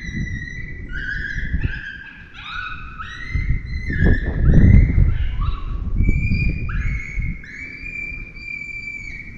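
Electronic predator caller playing coyote pup distress cries: a rapid, overlapping run of short, high-pitched yelps and whines. Wind rumbles on the microphone underneath, with a strong gust about four seconds in.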